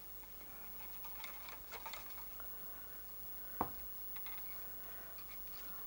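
Faint scratching and light ticks of a cotton bud being rubbed around the read/write head and carriage of a Commodore 1541-II floppy disk drive, with one sharp click about three and a half seconds in.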